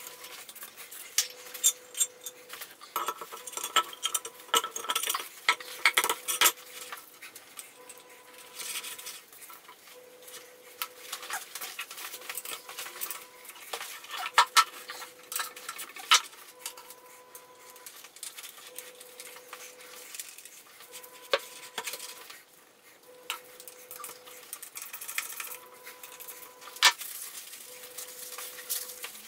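Irregular clinks and knocks of a heavy cast-iron milling machine accessory being handled and turned over, with a faint steady hum that comes and goes.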